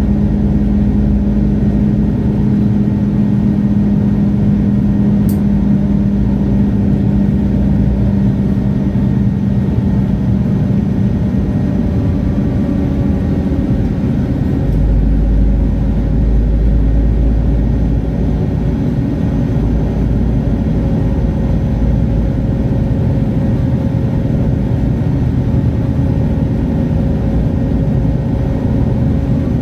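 Diesel engine of a MAN Lion's City G (A23) articulated city bus idling steadily while the bus stands at the stop. A single short click comes about five seconds in.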